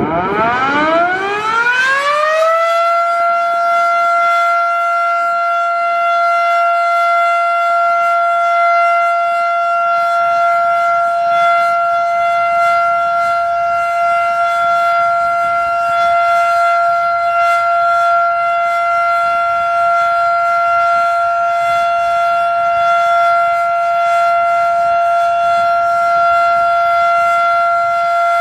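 Federal Sign and Signal Model 7 outdoor warning siren winding up from a low pitch to full speed over the first two or three seconds. It then holds one steady, high tone: the steady Alert signal of a scheduled siren test.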